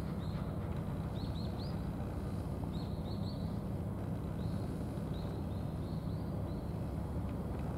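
Steady low mechanical hum, with birds chirping in short clusters of two or three quick high calls, several times over.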